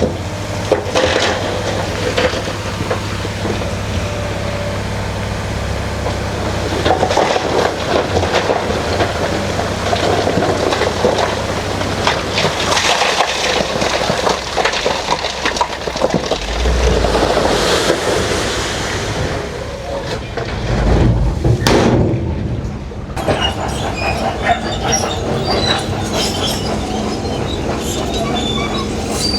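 Bulldozer working: the diesel engine runs steadily under load while the steel tracks clank and squeal and rock grinds and crackles under the blade.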